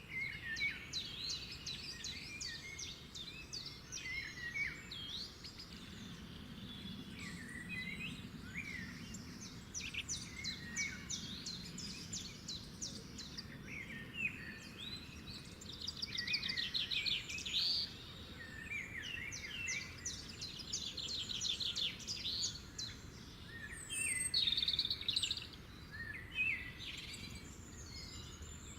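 Several songbirds singing at once, a busy mix of rapid trills and slurred whistles, over a faint steady low background noise.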